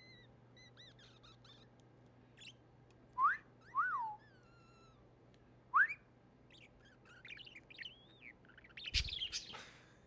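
A person whistling short notes to a pet budgerigar: two quick rising whistles and one that rises and falls, a few seconds in. The budgie answers with a run of quick, soft chirps and warbles in the second half, and a brief thump comes near the end.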